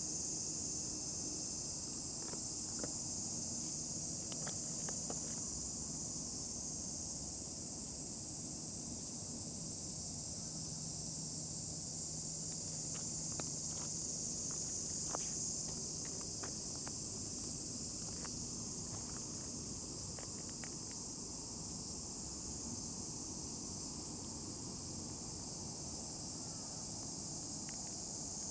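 Steady, high-pitched chorus of insects, with a few faint clicks and rustles now and then.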